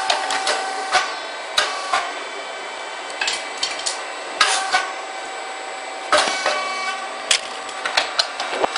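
Puffed rice cake machine running: a steady hum with several sharp, irregularly spaced clicks and knocks from the press and mold.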